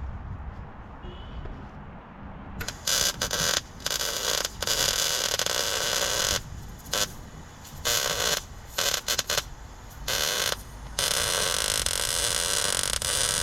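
Electric arc welder laying tack welds: a string of short crackling, buzzing bursts that start and stop abruptly, then one longer continuous weld from about two seconds before the end.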